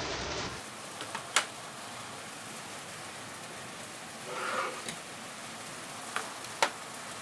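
A few sharp knocks and clicks as power-amplifier boards on their heatsinks are set down and moved inside a plywood amplifier case, the loudest about a second and a half in and near the end, over a steady hiss.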